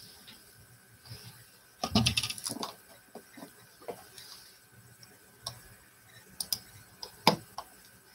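Light, scattered clicks and knocks of paintbrushes and painting tools being handled and tapped, with a short cluster of louder knocks about two seconds in and a sharp click near the end.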